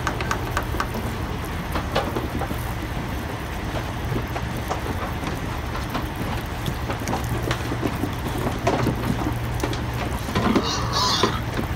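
Livestock truck running steadily with a low hum, while the pigs packed inside knock and scrape against the metal trailer. A short squeal comes near the end.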